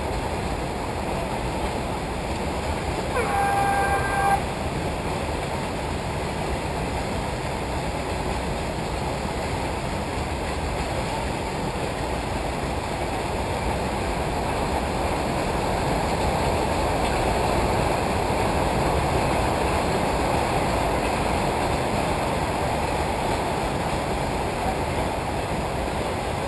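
A race start signal: an electronic horn tone sounds about three seconds in and lasts about a second, over a steady rushing noise that grows a little louder later on.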